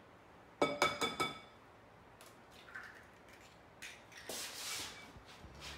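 A raw egg tapped three or four times in quick succession against the rim of a glass mixing bowl, each tap making the glass ring briefly as the shell cracks. A soft scratchy rustle follows a few seconds later as the shell is pulled apart.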